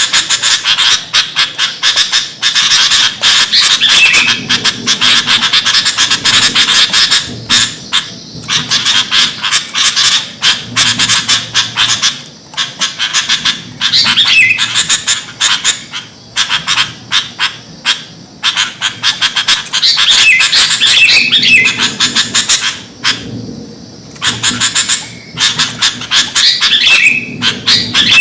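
Sooty-headed bulbul (kutilang) calling noisily: loud, rapid, harsh chattering with a few short whistled notes mixed in, breaking off briefly every few seconds.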